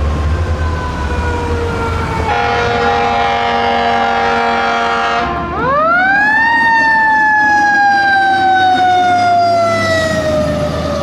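Fire engine siren falling in pitch, cut by an air horn blast of about three seconds. About halfway through, the siren winds up sharply and then slowly coasts down in pitch, over a low engine rumble.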